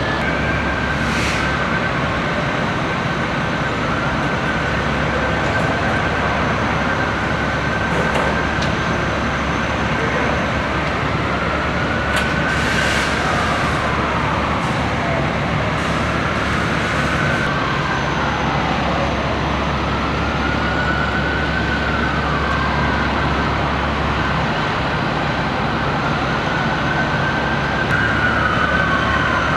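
Emergency vehicle siren wailing, its pitch rising slowly and then dropping steeply, again and again, over a steady low rumble of engines and street noise.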